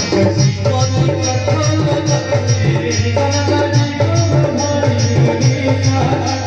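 Live Indian devotional music: harmonium and keyboard held tones over a steady, quick beat from a rope-laced barrel drum.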